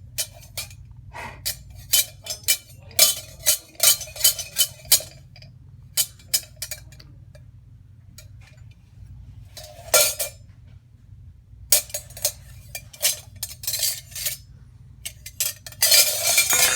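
A toddler knocking and clinking utensils against pots and pans while playing at cooking. The clinks come in irregular runs with short pauses, and there is a denser clatter near the end.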